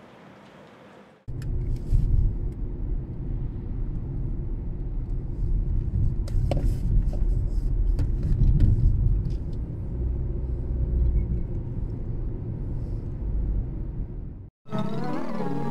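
Car cabin noise while driving: a steady low rumble of engine and road noise heard from inside the car, with a few faint clicks. It starts abruptly a little over a second in and cuts off near the end.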